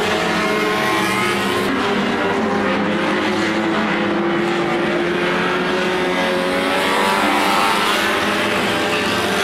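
Several 1500 cc banger racing cars' engines revving together, their pitches rising and falling as they race and jostle.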